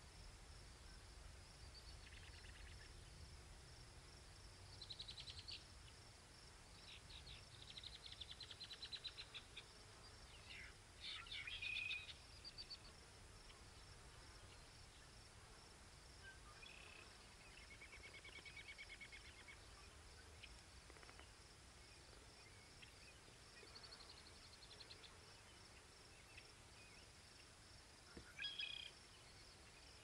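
Quiet grassland ambience: faint high chirps and trills come and go every few seconds over a low wind rumble. They are strongest around the middle and again near the end.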